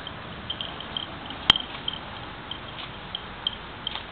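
Cows grazing: irregular small crunching ticks as grass is torn and chewed, with one sharp click about one and a half seconds in.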